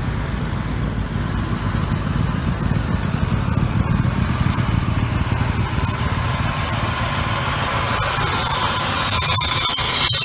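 Vehicles in a slow procession driving past: a steady low engine rumble, strongest about four seconds in as an open roadster passes. Near the end a fire engine goes by, the sound grows louder and a high whine rises over the engines.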